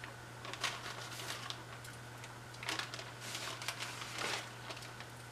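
Plastic zip-top bag crinkling in several short rustles as coated chicken drumsticks are taken out of it by hand and set on a wire rack.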